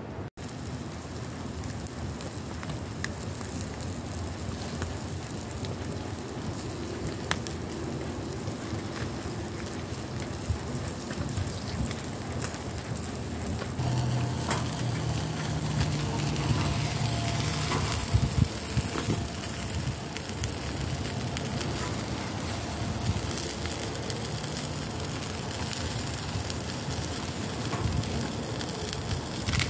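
Small open cooking fire crackling under a portable grill while a whole stuffed salmon cooks over it in a hinged wire grill basket. There is a steady hiss with scattered sharp crackles, and it grows somewhat louder about halfway through.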